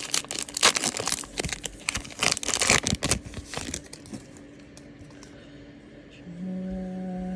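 A trading-card pack's wrapper being torn open and crinkled in the hands, with dense crackling that dies away after about four seconds. A short hum of a person's voice is held near the end.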